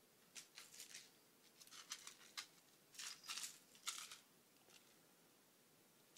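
Faint scratchy rustling in a few short bursts over near silence, with a little over a second of quiet towards the end.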